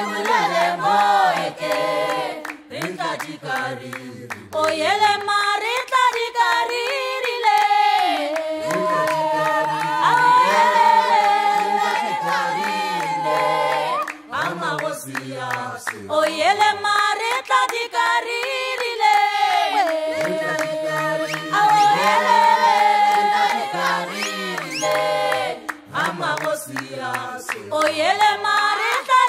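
A cappella choir singing in harmony: several voices moving together in parallel, with long held notes between shorter phrases.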